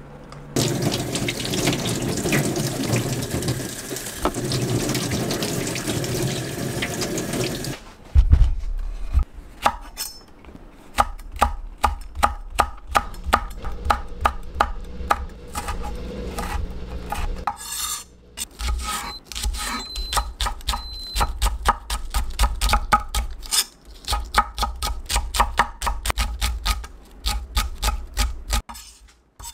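A steady rushing noise for about the first eight seconds. Then a kitchen knife chops red chili peppers and green onion on a wooden end-grain cutting board, in quick repeated strikes several a second with a brief pause midway.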